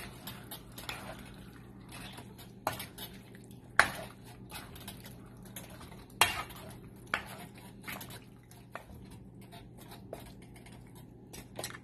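A spatula stirring chicken pieces in an aluminium wok, knocking and scraping against the pan at an irregular pace; the loudest knocks come about a third of the way in and just past halfway.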